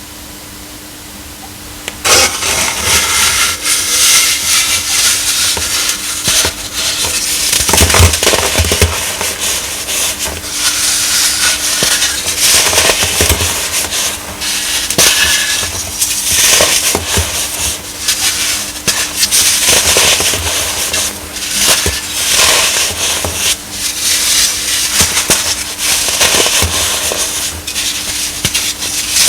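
Compressed baking soda being crushed close to the microphone: crisp, dense crunching and crackling that starts about two seconds in and carries on with frequent sharper crunches.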